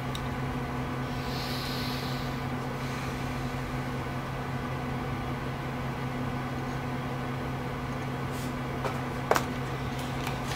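A steady low electrical hum. Near the end come a few faint clicks, the sharpest with a brief ring.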